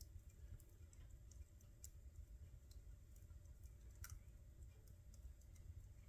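Faint wood fire crackling in a fireplace: scattered, irregular sharp pops and clicks over a low rumble, with a louder pop about four seconds in.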